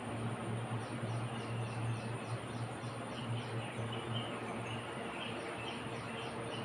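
Outdoor insect and bird ambience: a steady high insect drone with repeated high chirps about three a second, and a bird calling in short notes from about three seconds in, over a low steady hum.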